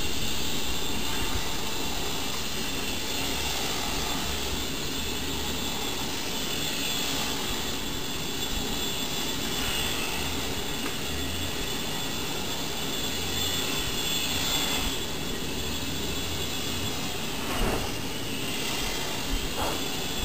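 Tiny motor and propeller of a 1.77 g homemade radio-controlled indoor micro plane whining steadily in flight, its pitch wavering a little as it circles. A couple of soft knocks near the end.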